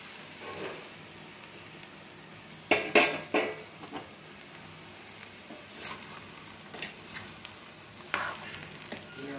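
Vegetables and semolina frying in oil in a kadai with a soft, steady sizzle, while a spatula scrapes and stirs through the semolina to roast it. A few sharp scrapes and knocks of the spatula against the pan are loudest about three seconds in, with lighter scrapes later.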